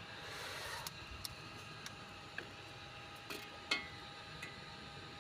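Quiet handling of small car parts: a brief rustle, a few light clicks and taps, and one sharper metallic clink with a short ring a little past the middle.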